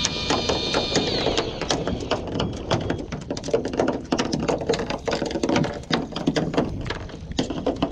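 Fishing reel winding in a hooked amberjack. A steady whine stops with a falling pitch about a second in, followed by rapid, irregular clicking and rattling from the reel.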